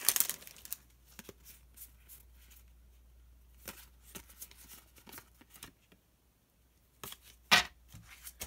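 Crinkling of a foil booster-pack wrapper at the start, then soft clicks and rustles of Pokémon trading cards being flipped through by hand. A brief loud crackle of handling comes near the end.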